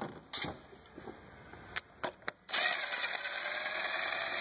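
A few light metal clicks as a socket extension and tool are fitted, then a DeWalt cordless drill runs steadily for about two seconds, spinning a spark plug socket on an extension to back a spark plug out of the engine.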